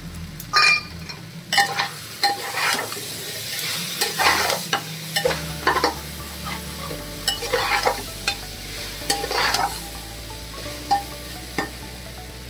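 Metal spatula stirring and scraping chickpea-and-potato masala in a pressure cooker, in irregular strokes against the pot, over a faint sizzle as the masala fries with freshly added tomatoes.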